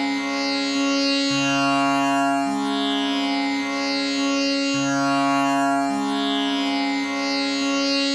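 Tanpura drone tuned to C sharp: its strings are plucked in an unbroken repeating cycle about every three and a half seconds, over a constant tonic note. Buzzing overtones swell and shift with each pluck.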